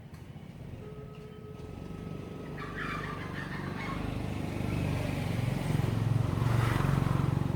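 A motor vehicle's engine drawing steadily nearer and louder, loudest near the end as it passes close by.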